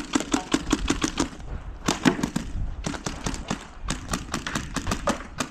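Gunshots fired rapidly in several quick strings of many shots a second, broken by short pauses, as a shooter runs a timed drill.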